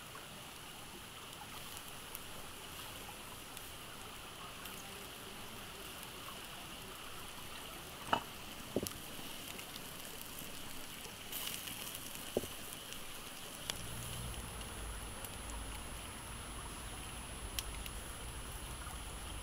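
Wood fire crackling and fat sizzling under a seasoned duck roasting on a spit: a steady patter with scattered sharp pops, the loudest about eight seconds in. A low rumble comes in about two thirds of the way through.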